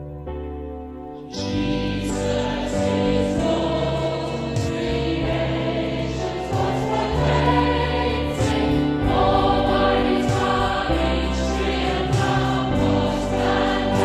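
Choir singing with instrumental accompaniment, which comes in strongly about a second in after soft sustained chords.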